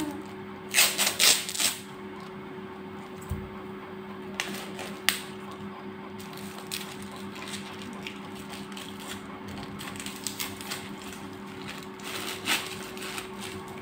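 Clear plastic wrapping crinkling and tearing as it is pulled off a gift box, in irregular crackles, loudest about a second in. A steady hum runs underneath.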